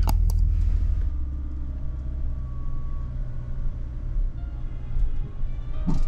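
Vehicle engine running, heard from inside the cab as a steady low rumble.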